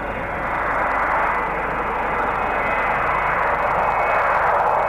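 Boeing 727's three Pratt & Whitney JT8D turbofan jet engines at takeoff power during the takeoff roll: a steady jet noise that grows gradually louder as the aircraft accelerates down the runway.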